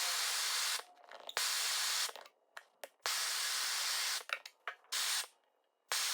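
A steady hiss of escaping gas in four or five stretches of about a second each, each cut off abruptly.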